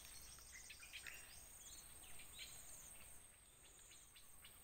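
Faint insects trilling in repeated high-pitched pulses, with scattered short bird chirps.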